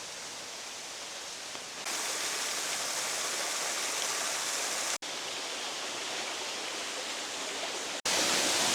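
Waterfall rushing steadily, in separate clips joined by abrupt cuts about two, five and eight seconds in. The water is louder after the first cut.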